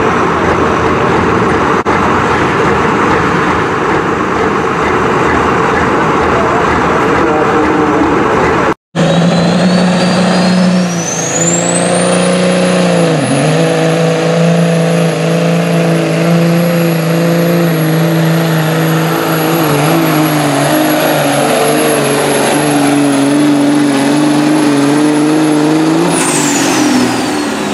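Diesel semi-truck engines at a truck pull. First a rough, loud engine running at the sled. Then, after a brief break, a semi pulls under full load: a steady engine note with a turbocharger whistle that climbs to a high, steady pitch and holds, then winds down near the end as the throttle comes off.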